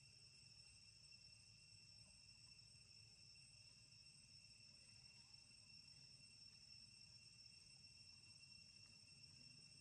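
Faint, steady chorus of insects: one continuous high-pitched trill that never breaks or changes.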